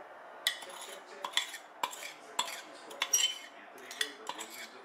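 Kitchen utensils and dishes clinking and tapping lightly while ingredients are handled: about ten short, irregular clinks.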